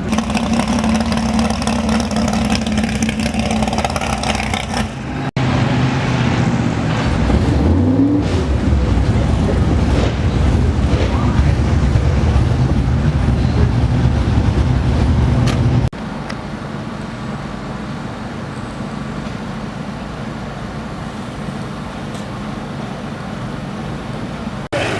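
Drag-race car engines in several cut-together clips: a steady engine note, then about ten seconds of loud running with the revs rising, then a quieter stretch of engine and track noise.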